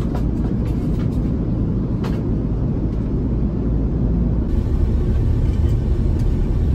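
Steady low rumble inside a moving vehicle's cabin, with a few faint clicks and taps. The background hiss changes slightly about four and a half seconds in.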